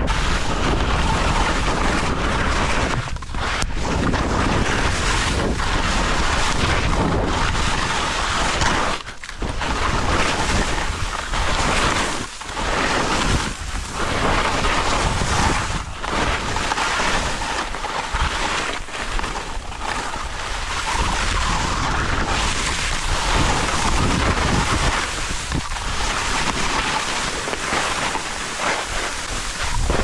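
Wind rushing over the microphone, together with skis scraping and hissing across soft spring corn snow. The noise dips briefly every few seconds as the skier turns.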